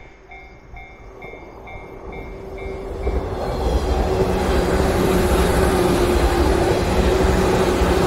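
Level-crossing warning bell dinging about twice a second, then a 115 series electric train passing close by. Its running noise rises from about three seconds in, drowns out the bell, and stays loud.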